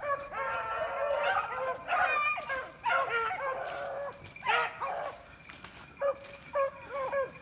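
A pack of beagles baying while running a rabbit, several hounds giving tongue at once in overlapping cries that come in bursts with brief lulls.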